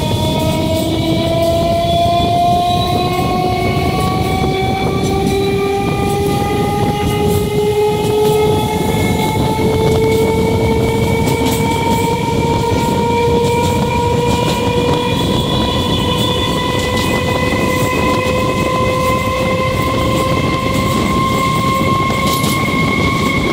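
Electric multiple unit (EMU) train's traction motors whining, heard from the leading coach: a stack of tones rising slowly and steadily in pitch as the train gathers speed. Under it runs a steady rumble of wheels on the track.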